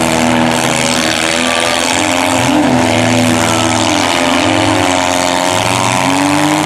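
Several small demolition derby cars' engines running at high revs together, their pitches rising and falling against one another as they rev.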